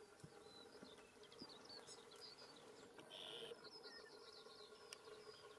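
Near silence: faint small-bird chirps, with a brief buzz about three seconds in.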